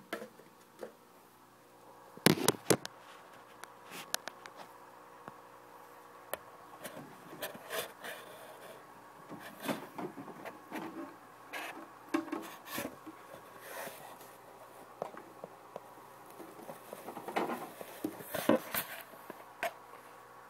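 Irregular small clicks, taps and rubbing from a turkey baster and plastic cup being handled during aquarium cleaning. There is a louder cluster of knocks about two seconds in and another near the end.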